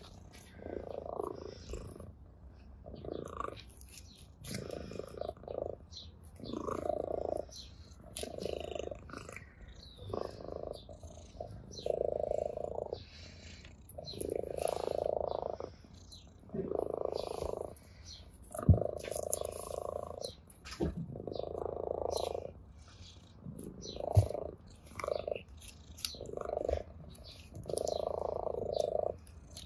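An orange tabby cat purring steadily, the purr swelling and fading with each breath. Two sharp taps stand out partway through.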